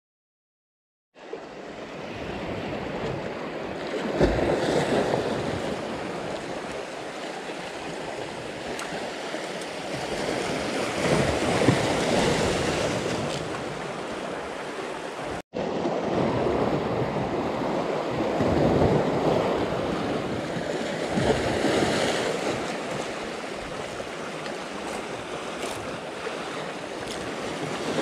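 Sea waves washing in over a rocky shore, a steady rush that swells and eases every several seconds. It starts after about a second of silence.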